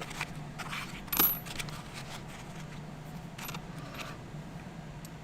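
Small steel crimper jaw pieces being handled: one sharp metallic clink with a brief ring about a second in, then two lighter clicks a few seconds later.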